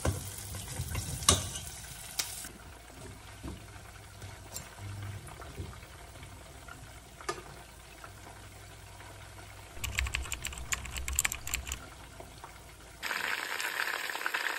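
Chicken pieces frying in oil in a nonstick pan, with metal tongs clicking against the pan as the pieces are turned, in a quick cluster about ten seconds in. Near the end the sizzling jumps suddenly to a loud, steady hiss.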